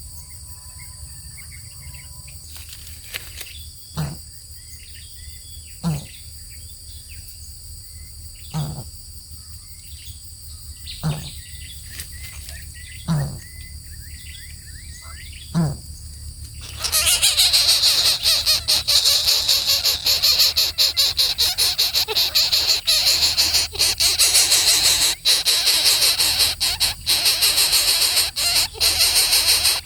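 Insects droning steadily and birds chirping, with six short, sharp sounds about two seconds apart. About halfway through, a loud rushing noise that flutters rapidly takes over and drowns them out.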